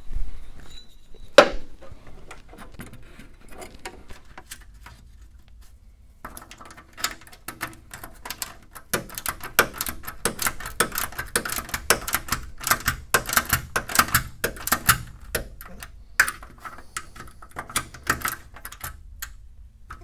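Small ratchet wrench clicking in rapid runs as it tightens the screws of a taillight bracket on a Ford Model A fender, with one sharp metallic knock a second or so in.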